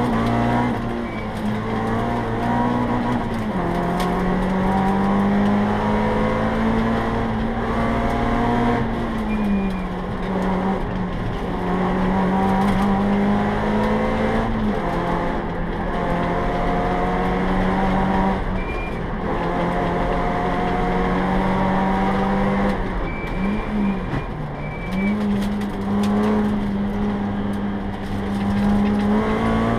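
Peugeot 309 GTI rally car's four-cylinder engine heard from inside the cabin, driven hard on a stage: the note climbs with the revs and falls sharply several times at lifts and gear changes. Brief high-pitched squeaks come a few times.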